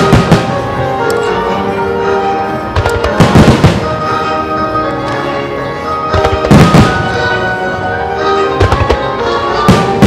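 Starmine fireworks going off in about five volleys, each a dense cluster of sharp bangs, roughly every two to three seconds, over steady music.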